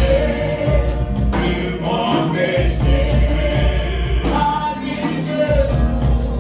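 Live gospel worship music: a lead singer and backing singers on microphones sing a hymn over a band of keyboard, bass and drums.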